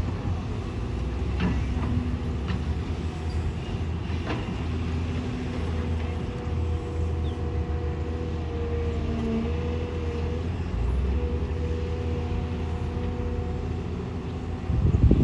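Excavator diesel engine running steadily with a held whine that wavers slightly in pitch, and a few short knocks. A louder thump comes near the end.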